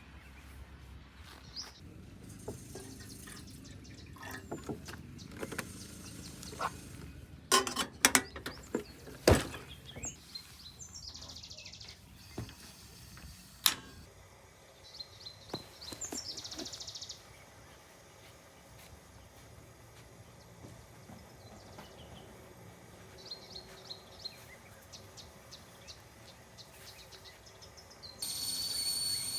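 Outdoor ambience with birds chirping now and then, and a cluster of sharp knocks and clicks about a third of the way through. Near the end a loud, steady high whistle begins.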